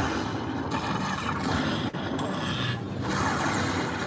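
Lightning Link Tiki Fire slot machine sounding its win-tally as the bonus payout counts up, over a steady din of casino floor noise, with a brief break about two seconds in.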